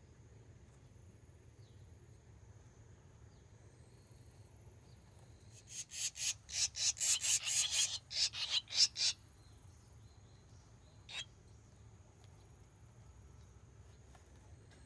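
Barn swallows chirping: a quick run of high-pitched chirps, about five a second, for some three seconds, then a single short chirp a couple of seconds later.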